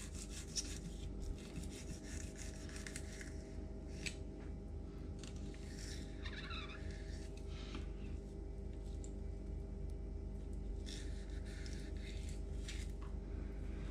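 Filleting knife cutting along a trout's spine, a few soft scrapes of the blade against backbone and flesh over a steady low background hum.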